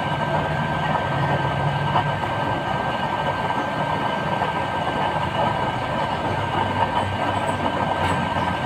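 Homemade waste-oil stove's nozzle burner running: a steady, loud rushing noise of the burning flame, with a thin steady whine on top.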